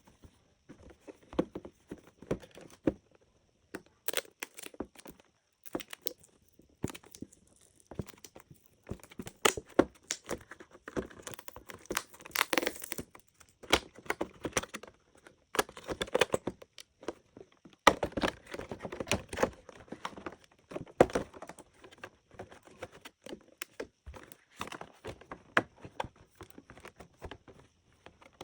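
Toy blind-box packaging being handled and opened: irregular crinkling and tearing of wrapping, with small clicks and taps, busiest through the middle.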